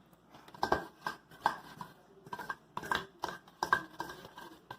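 A utensil stirring slime in a pot, making a run of irregular knocks and scrapes against the container as the activator is mixed into the glue.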